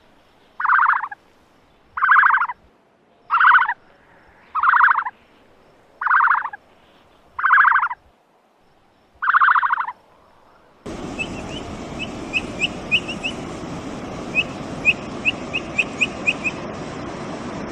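A bird calling seven times in short rattling calls, about one every second and a half. From about eleven seconds in, a steady outdoor hiss with quick, high bird chirps takes over.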